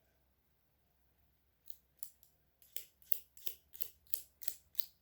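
Kinetic sand being worked by hand with a tool: after about a second and a half of quiet, a run of crisp, evenly spaced strokes begins and settles to about three a second.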